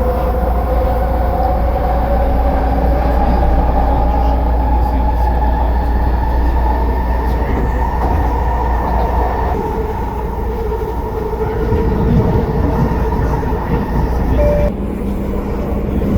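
SkyTrain metro train running, a steady rumble under a whine that rises slowly in pitch over the first several seconds as the train gathers speed. Near the end the sound drops abruptly.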